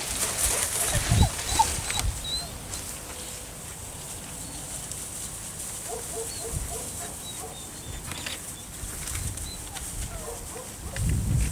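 A herding puppy's short whines and yips now and then, over irregular low rumbling thumps on the microphone, strongest at the start and again near the end.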